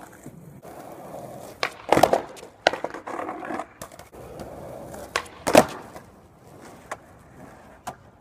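Skateboard on rough concrete: wheels rolling, broken by several sharp clacks of the board striking the ground, the loudest about two seconds in and again about five and a half seconds in.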